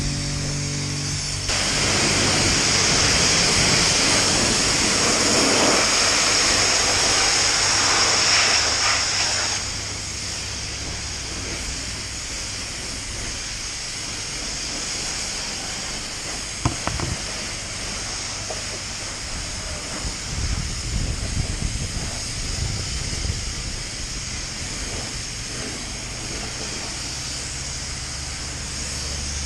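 A self-service car wash's high-pressure lance spraying a dirt bike, a steady hissing jet. It starts loud about a second and a half in, drops to a softer hiss after about eight seconds, and a couple of short knocks come midway.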